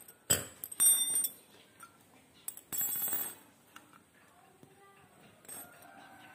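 Sharp metal clicks and a short high metallic ring about a second in as a steel hex (Allen) key is put down, then a burst of handling noise around three seconds in as the plastic-housed VSAT transceiver is picked up and turned over.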